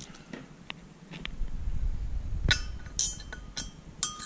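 Light metal clinks and taps as a steel intake valve is handled and its stem slid into the valve guide of an aluminium LS cylinder head. The clicks come irregularly, a few of them ringing briefly.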